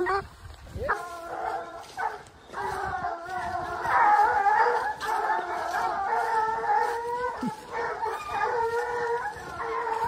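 Several hunting-dog puppies howling and yelping together, their high wavering voices overlapping almost without a break, with short pauses near the start and about two seconds in.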